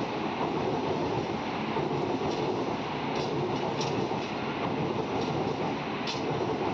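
Passenger train coaches rolling past on an adjacent track: a steady rumble of steel wheels on rails with a few light clicks.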